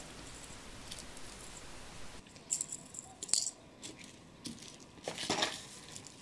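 Small metal parts and tools handled on a bench: a few sharp metallic clicks and a brief rattle about five seconds in, from brass nuts in a mesh tea-infuser ball and a pair of pliers.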